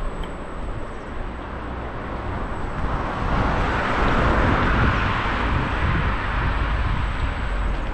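Low wind rumble on the microphone as the scooter rolls along. About three seconds in, a car passes close by, and its tyre and engine noise swells for a few seconds, then eases off.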